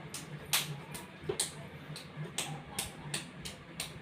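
Knocking on a door: a run of sharp, irregular taps, about two or three a second.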